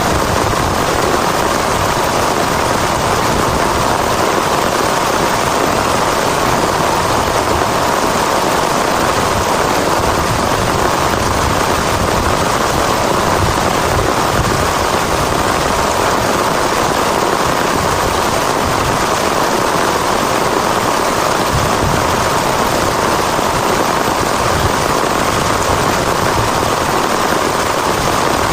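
Heavy rain falling hard and steadily, a dense hiss with no let-up.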